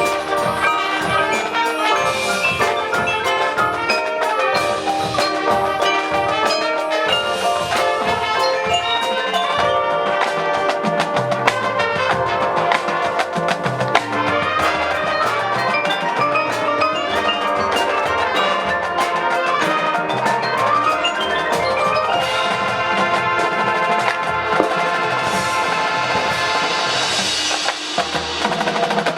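High school marching band playing its field show, with the front ensemble's mallet percussion prominent among dense, layered pitched notes and frequent percussion strikes.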